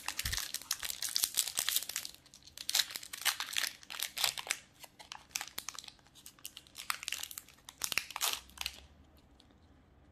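Foil wrapper of a Magic: The Gathering Commander Legends collector booster pack being torn open and crinkled in the hands, a rapid crackle of crinkles that stops about nine seconds in.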